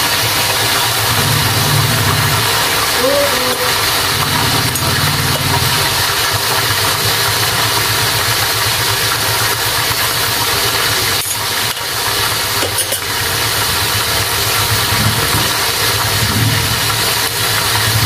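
Pork pieces sizzling loudly as they fry in very hot oil in a pan, stirred with a metal spatula at the start, with a low hum underneath and a couple of sharp knocks a little past the middle.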